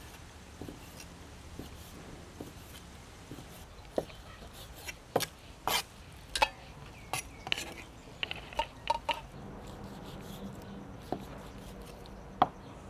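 A kitchen knife chopping raw chicken breast into cubes on a wooden chopping block: single sharp knocks at irregular intervals. A few short ringing clinks come about two-thirds of the way through.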